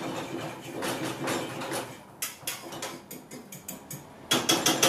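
A spoon scraping and tapping against a frying pan as it pushes setting omelette egg around. It scrapes at first, then turns into a run of quick taps that come faster and louder near the end.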